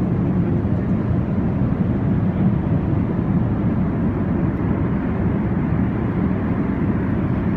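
Cabin noise inside an Airbus A380 airliner in flight: a steady, low-pitched rushing noise of airflow and engines, with no change in level.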